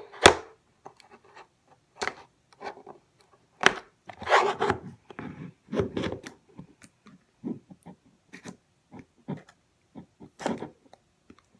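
A serrated knife sawing and scraping at the rim of a sealed metal tin to cut it open: irregular rasping strokes and sharp clicks in short bursts, with pauses between them.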